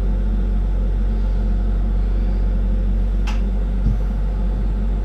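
Steady low rumble and hum of a flameworking bench with the glassworking torch burning, with a sharp click about three seconds in and a soft thump just after.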